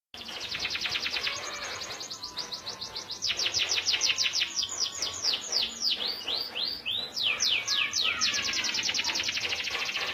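Domestic canary (local Indonesian kenari) in full, non-stop song: long runs of rapid falling trill notes. Around the middle the notes slow to wider, slower down-sweeps, then speed up into fast trills again.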